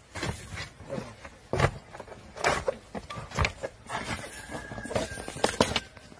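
Irregular knocks, clatters and scrapes of framed award plaques being handled and stepped on on a concrete floor.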